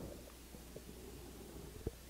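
Faint sipping and swallowing as a man drinks from a stainless steel tumbler, over a low steady hum, with a small click near the end.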